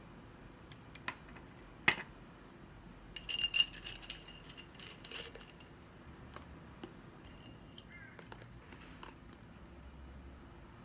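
Felt-tip pens clicking and rattling against each other and the table as they are picked up and put down: a sharp click about two seconds in, a cluster of clattering from about three to five seconds in, then a few light taps.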